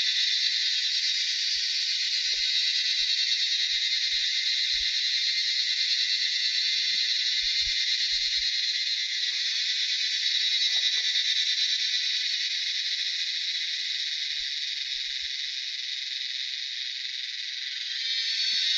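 A dense, steady, high-pitched chorus of calling animals, a little softer near the end.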